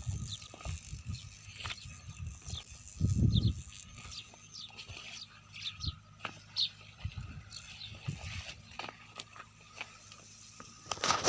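Outdoor farm ambience with birds giving short, scattered high chirps. There is a brief low rumble about three seconds in, and a louder noisy burst at the very end.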